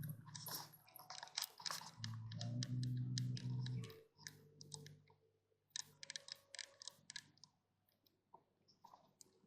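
A pet chewing and gnawing on something, heard as a run of irregular crisp clicks and crunches. A steady low hum sounds under the first four seconds, then stops.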